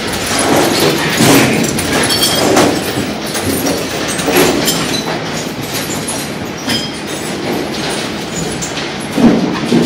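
Waste-sorting line running loudly: conveyor belts and screening machinery give a steady mechanical din, with irregular knocks and rattles of debris on the belt.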